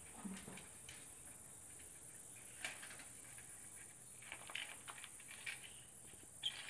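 Faint, scattered short clicks and scrapes of hand work at steel reinforcing bars, with a sharper click near the end.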